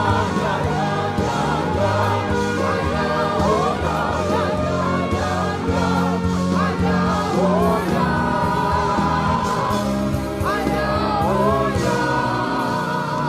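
Gospel worship music: voices singing a slow melody with sliding, wavering notes over sustained instrumental backing and a steady bass.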